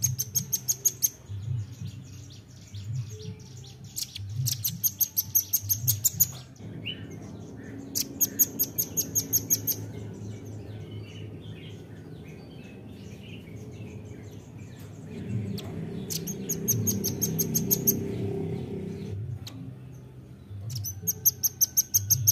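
Velvet-fronted nuthatch calling in rapid trills of sharp, high chipping notes. The trills come in five bursts, each one to two seconds long, with pauses between.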